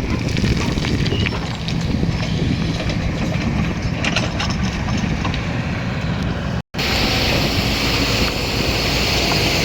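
Excavator diesel engine running under work, with scattered knocks and clatter. About seven seconds in the sound drops out for an instant and comes back as a steadier engine with a strong high hiss.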